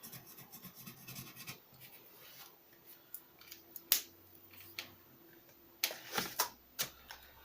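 An art tool scratching and rubbing on paper as a colour swatch is laid down, with scattered small clicks and taps in between.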